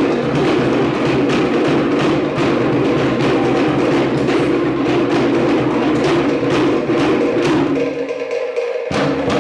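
Cook Islands drumming: wooden log drums struck in a fast, even rhythm over a steadier lower layer. The low part drops out for about a second near the end, then comes back.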